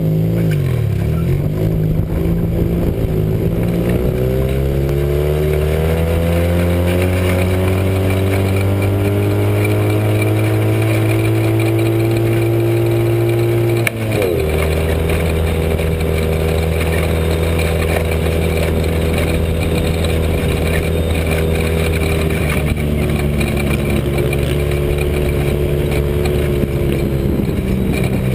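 Joyner dune buggy engine, with a Weber 45 DCOE carburettor and a big-tube header, running hard under load across sand. It climbs steadily in pitch for about the first half, drops sharply at a gear change, then pulls at a fairly steady pitch with a smaller dip later on.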